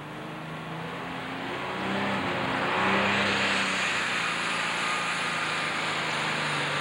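Alcohol-burning Super Stock pulling tractor's turbocharged engine revving up, growing louder over the first three seconds. A high turbo whine climbs about three seconds in and then holds.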